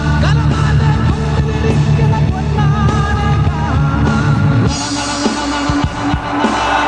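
Live rock band playing, with a male singer's vocals over the band. About two-thirds of the way in, the heavy low end drops away and sharp drum hits carry on.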